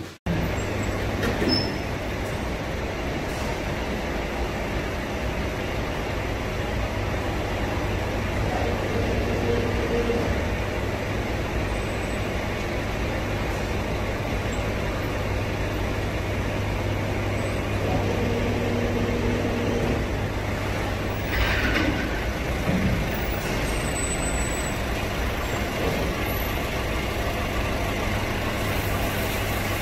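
Roller brake tester's motor-driven rollers turning a small truck's wheels, a loud steady rumble with a low hum. A short hiss about three-quarters of the way through.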